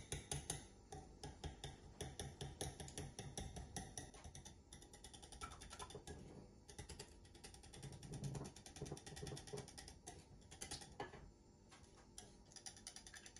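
Small wire whisk beating eggs into a milk and flour mixture in a ceramic bowl, its wires clicking rapidly and steadily against the bowl.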